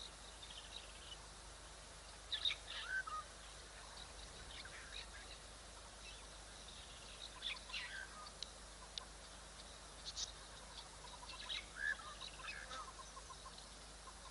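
High chirping animal calls in three short bouts, each sliding down in pitch, over a faint steady outdoor background.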